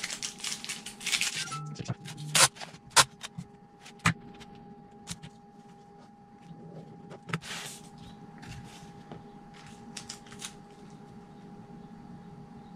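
Colored packing tape being peeled, trimmed and handled on a cutting mat: a rustling peel in the first second or so, several sharp clicks and taps a few seconds in, and another short peel midway. A faint steady hum runs underneath.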